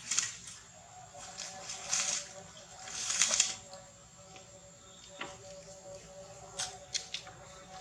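Short bursts of rustling noise, five or six times, a second or more apart.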